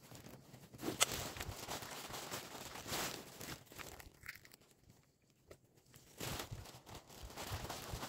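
Hands picking ripe bitter melons by hand, with the vines and leaves rustling and the fruit tearing free. A sharp snap comes about a second in, and there is a short lull about five seconds in.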